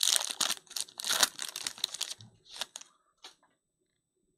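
Foil wrapper of a 2023 Panini Select Football hobby pack torn open and crinkled by hand for about two seconds, followed by two short ticks.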